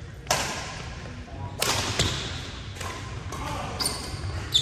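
Badminton racket strings smacking a shuttlecock back and forth in a rally: a string of sharp hits about a second apart, echoing in a large gym hall. Near the end comes a short high squeak, like shoes on the wooden court.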